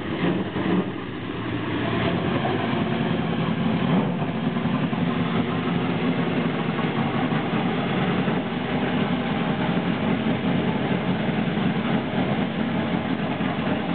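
NASCAR stock car's V8 engine idling steadily.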